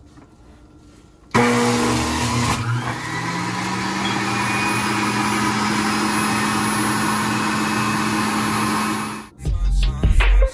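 Electric centrifugal juicer switching on about a second in and running steadily as it shreds strawberries and watermelon fed down its chute, with a low motor hum under the grinding that shifts briefly soon after start-up and then holds steady. It cuts off near the end, and music with a heavy bass beat comes in.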